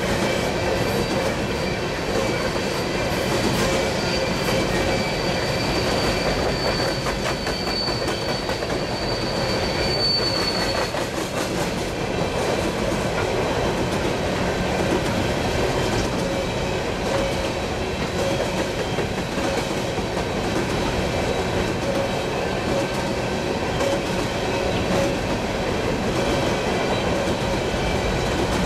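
Coal cars of a freight train rolling past close by: a steady rumble of steel wheels on the rails. A thin, high wheel squeal sounds over it for roughly the first ten seconds and then stops.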